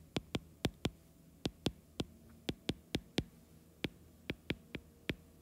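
Stylus tip tapping on a tablet's glass screen during handwriting: sharp, short clicks at an uneven pace of about three a second, over a faint steady low hum.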